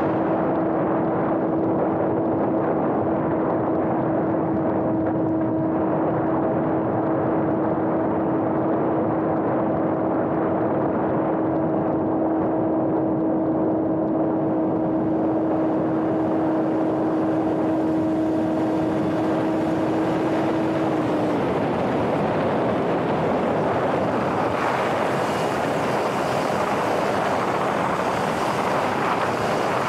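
Electric motor and propeller of a homemade RC plane in flight: a steady drone held at one pitch over a constant rush of air, the drone stopping about two-thirds of the way through as the air noise grows brighter.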